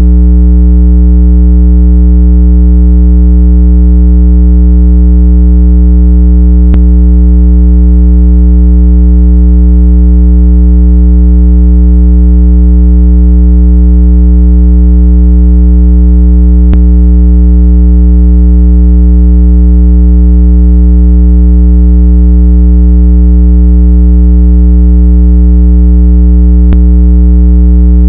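Speaker-cleaning water-eject tone: a steady, very loud, low buzzing tone with many overtones, played at full volume so the speaker cone shakes water and dust out of a wet phone speaker. Three faint clicks come about ten seconds apart.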